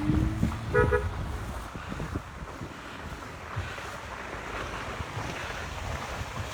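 Street traffic rumbling by, with wind buffeting the microphone; a short pitched beep sounds about a second in.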